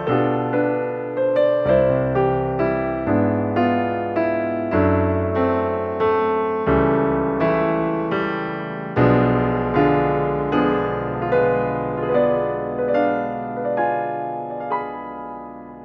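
Background piano music: notes struck at an even pace over low bass notes that change every couple of seconds, easing down near the end.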